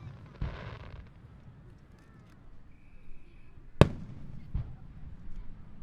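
Aerial fireworks bursting: a hissing burst about half a second in, then a sharp loud bang near four seconds in, followed a moment later by a duller boom.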